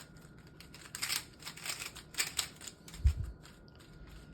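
GAN 11 M Pro speedcube being turned fast, its plastic layers clicking and clacking in quick irregular runs, with a dull thump about three seconds in.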